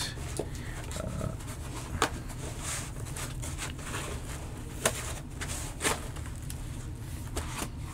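Rustling of foam packing and handling of stacked acrylic case layers, with a few sharp clicks as the acrylic pieces knock together, the loudest about five seconds in.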